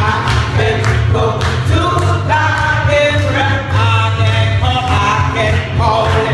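Gospel music: voices singing over instrumental accompaniment with a strong bass and a steady beat.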